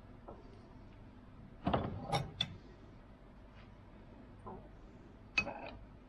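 Metal clanks of a crate hammer being worked in a cast-iron bench vise: three knocks close together about two seconds in, then one sharp clank with a brief metallic ring near the end.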